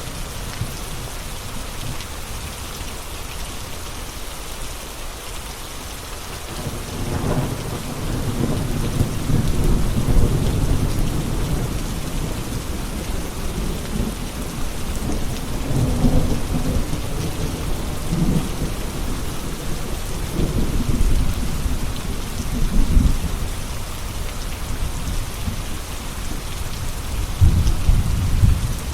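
Steady rain falling, with thunder rumbling in low rolling swells from about seven seconds in, loudest near the end.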